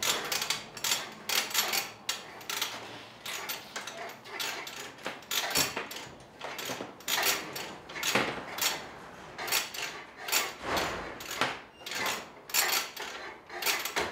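Irregular clatter and clinks of tools and metal parts being handled at a workbench, several knocks a second with short pauses between.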